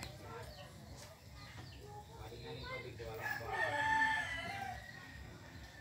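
A rooster crowing once, a long held call that starts about three seconds in and lasts about a second and a half.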